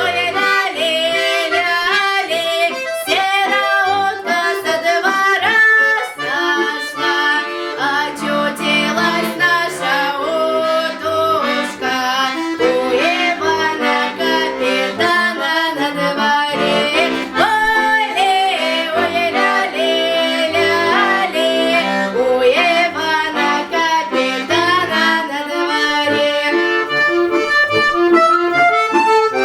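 Accordion playing a Russian folk-song tune, a melody over held chords.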